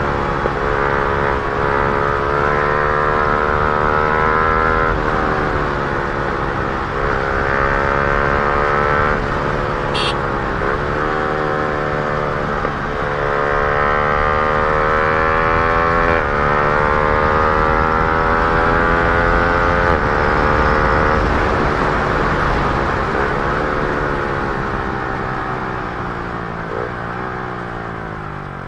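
Yamaha R15 M's single-cylinder engine running through an aftermarket Akrapovic R1 exhaust under hard acceleration, the pitch climbing and then dropping sharply at each quick upshift, several times in the first half. In the second half the revs sink slowly as the bike slows, and the sound fades near the end.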